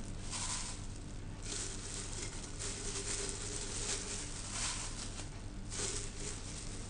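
Soft rustling and squishing of grated beetroot as it is dropped by hand into a glass jar and pressed down, in several short bursts over a steady hiss.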